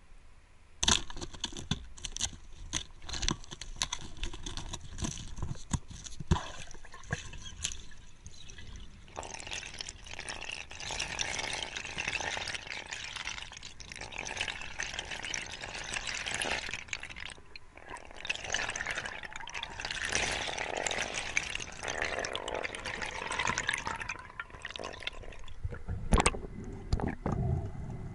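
Underwater spearfishing on a dusky grouper: a sharp crack about a second in, then scattered clicks and knocks, then long stretches of bubbling, hissing water noise, with another loud knock near the end.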